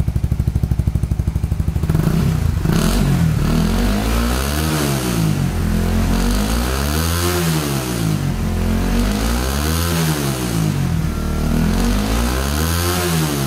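Motorcycle exhaust through a Smoke Muffler aftermarket silencer fitted with both its end-cap dB killer and a second dB killer in the neck pipe: the engine idles for about two seconds, then is revved up and back down four times, up to about 11,000 rpm. With both dB killers in, it sounds very close to a stock exhaust and not noisy.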